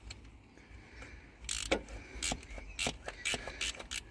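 Small quarter-inch ratchet clicking in short, irregular strokes as a bolt is turned out, beginning about a second and a half in.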